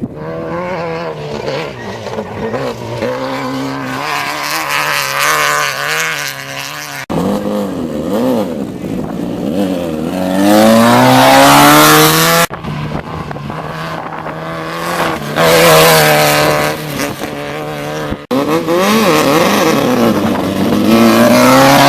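Desert off-road race car engines revving and passing, their pitch climbing under acceleration and falling away. The sound breaks off and changes abruptly about three times as one pass gives way to the next.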